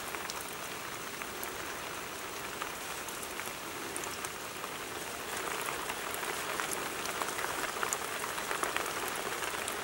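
Steady rain falling on leaves and soil, a dense patter of drops that grows a little louder about halfway through.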